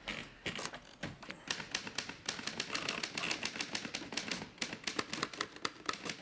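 Manual typewriters being typed on: keys clacking, a few scattered strokes at first, then quick, steady typing from about a second and a half in.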